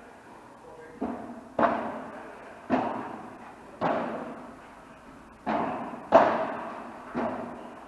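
Padel rally: a padel ball struck by rackets and bouncing off the court, about seven sharp hits at irregular intervals, each with an echoing tail, the loudest about six seconds in.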